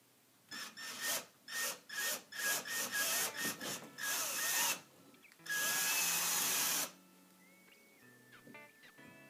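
Compact cordless drill drilling anchor holes into the wall: about eight short trigger bursts, each with a motor whine, then one steady run of about a second and a half.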